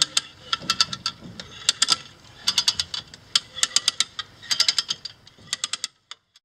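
Hand come-along being ratcheted under load, lifting an engine on its chain: each stroke of the lever gives a quick run of metallic pawl clicks, in bursts with short gaps. The clicking stops abruptly about six seconds in.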